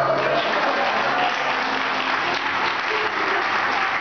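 Audience applauding, breaking out just as a song stops and keeping up a dense, steady clatter.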